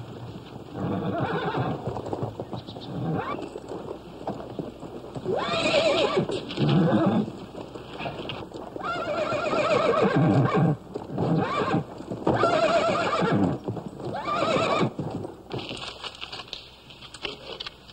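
Horses whinnying several times, with hooves clopping on dirt, while a horse is being caught with a lasso.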